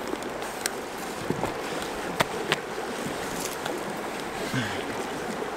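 Creek water running steadily, with a few sharp clicks and rustles from a hiking boot's laces being pulled tight.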